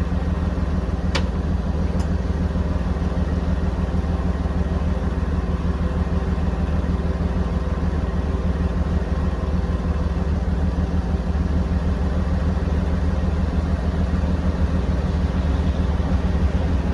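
Drill rig's engine idling steadily, with two sharp clicks about a second and two seconds in.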